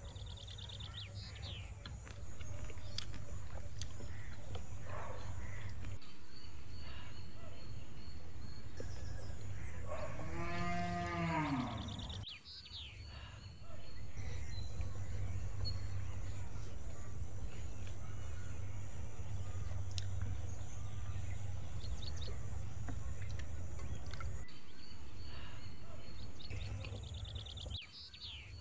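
A cow mooing once, a single long call about ten seconds in that rises and falls in pitch, over a steady low hum with a few short bird chirps.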